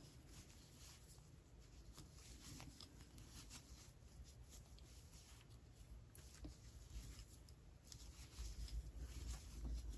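Near silence with faint rustling of yarn and small clicks of a metal crochet hook as stitches are worked. A low rumble of handling comes up near the end.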